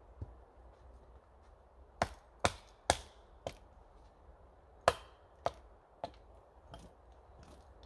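Small axe chopping into a wooden pole: four sharp blows in quick succession about two seconds in, then another hard blow near the middle followed by lighter, more spaced knocks.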